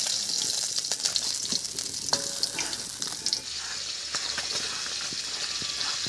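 Hot mustard oil sizzling and crackling in a karai as fried pabda fish are lifted out with a metal spatula. About three seconds in, the crackle gives way to a steadier hiss-like scraping of mustard, poppy-seed and green-chili paste being ground on a stone slab.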